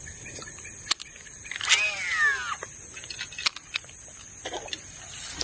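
An animal call that falls in pitch over about a second, about two seconds in, over a steady high-pitched hiss, with a few sharp clicks.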